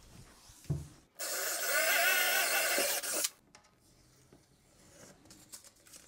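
Power drill boring a knob hole straight through a painted wooden cabinet door that has painter's tape on its back, running at speed for about two seconds and then stopping.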